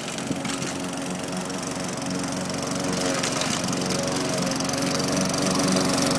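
Gasoline walk-behind lawn mower engine running steadily under load, with a few sharp knocks near the start and growing slightly louder in the second half.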